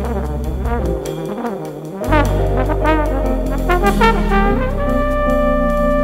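Jazz trombone solo: quick runs of notes that slide up and down, settling on a long held note near the end, over a low bass line.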